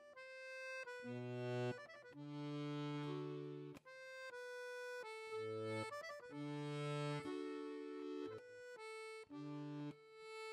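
Solo accordion music: held chords over bass notes, changing about once a second, with short breaks between phrases.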